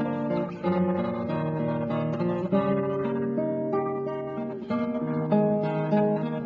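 Background music: acoustic guitar playing, with notes plucked and strummed in a steady melodic run.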